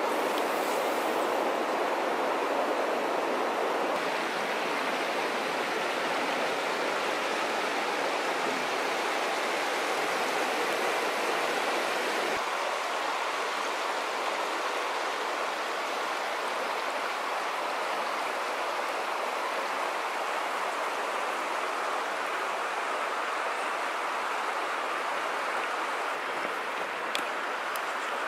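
Shallow river water rushing and rippling over rocks and stone ledges, a steady, unbroken sound that shifts slightly in tone about twelve seconds in.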